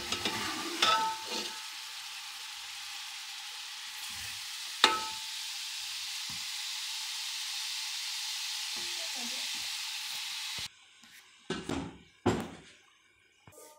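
Masala sizzling in a hot aluminium pot as a spoon scrapes it out, with a few sharp metal clinks of the spoon against the pot. The sizzling cuts off suddenly near the end, and a few knocks of the spoon in the pot follow.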